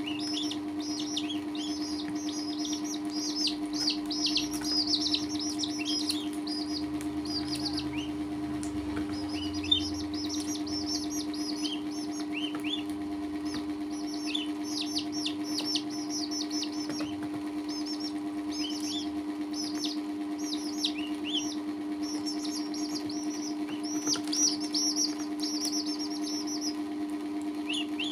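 Chicks and a duckling peeping: a stream of short, high peeps, each sliding downward, over a steady low hum, with one sharp tap about ten seconds in.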